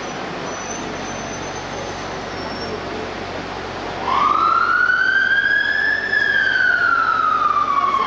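London Fire Brigade fire engine's siren switching on about halfway through, over steady street traffic noise: a slow wail that rises for about two seconds and then falls slowly. It is the sign of an appliance setting off on an emergency call.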